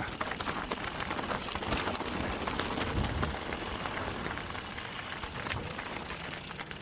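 Mountain bike rolling over a rocky trail: tyres crunching over loose stones, the bike rattling with many small clicks over the rough ground, a little louder a couple of seconds in.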